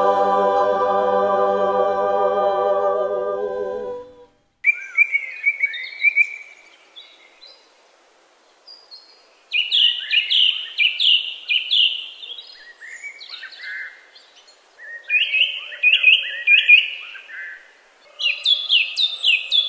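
The choir's final held chord fades out about four seconds in. A songbird then sings in short, quick phrases of chirping notes, repeated with pauses between them.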